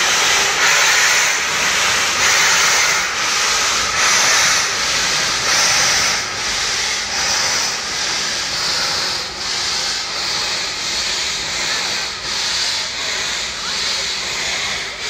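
LNER K1 steam locomotive 62005 pulling away with a train of coaches, steam hissing over rhythmic exhaust chuffs. The chuffs come closer together and fade as the engine picks up speed and draws off.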